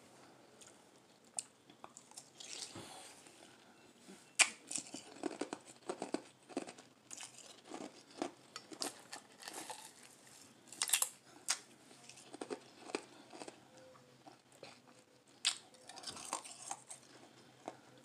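Crushed blended ice being bitten and chewed: irregular crisp crunches, the loudest about four, eleven and fifteen seconds in.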